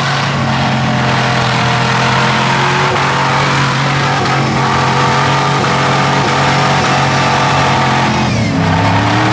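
Rock buggy's engine running hard at steady, high revs as the buggy crawls over rocks on a climb, with a brief change in revs near the end.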